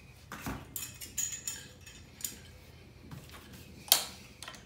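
Scattered light metallic clinks and knocks as a brass shower mixing valve is handled and set against a wooden brace, with one sharper knock about four seconds in.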